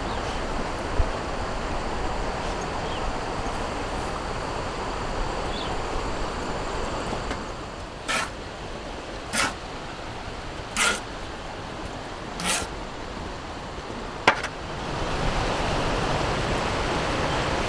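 Steady rushing noise, then four short scrapes of a shovel in wet sand, about a second and a half apart, and a sharp click. Near the end, water pouring steadily into the truck's radiator.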